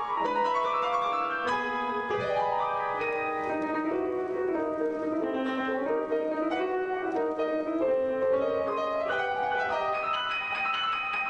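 Grand piano played solo, a continuous flowing run of notes across the middle and upper register.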